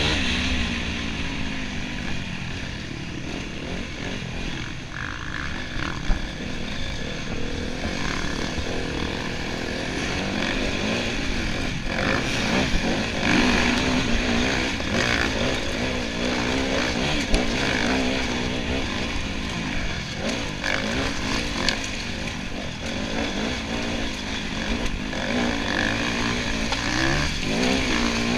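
Enduro motorcycle engine being ridden hard, its pitch rising and falling as the throttle opens and closes, with a few sharp knocks along the way.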